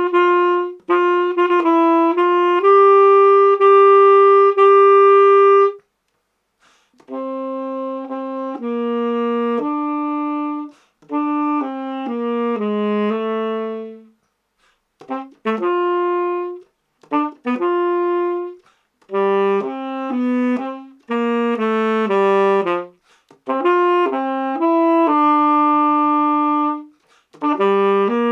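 Unaccompanied tenor saxophone playing one line of a wind-band part: a few short opening notes and a long held note, a brief pause, then melodic phrases broken by short rests.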